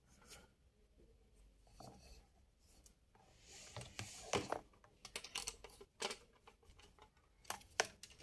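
Small hard drive screws being driven with a Phillips screwdriver into a hard drive's mounting holes: faint scattered clicks and a brief light scrape.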